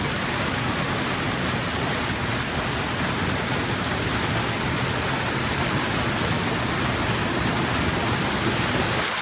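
Steady, loud rush of a waterfall running full after heavy rain, with no breaks or changes.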